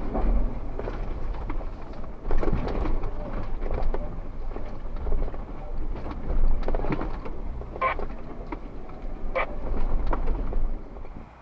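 Jeep Wrangler Rubicon moving over a rocky trail, heard from a hood-mounted camera: a heavy low rumble with wind buffeting the microphone, scattered knocks, and two short squeaks near the end.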